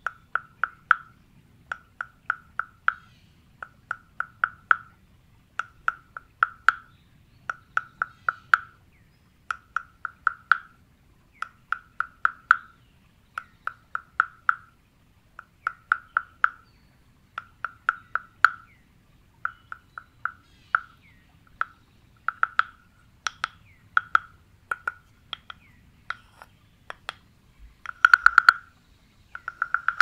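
Carved wooden frog guiro scraped with its stick along the ridged back, giving short rasping croaks: rapid clicks that ring at one hollow pitch. The croaks come mostly in pairs about every two seconds, and the loudest comes near the end.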